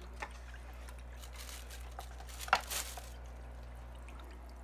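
Quiet handling noises over a steady low hum: a light click about a quarter second in, then a sharper click followed by a short crinkling rustle about two and a half seconds in.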